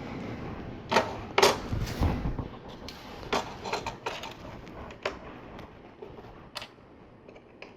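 Plastic LEGO bricks clicking and knocking as they are handled and pressed onto the model on a tabletop: scattered sharp clicks, two of them close together about a second in, among softer rustling.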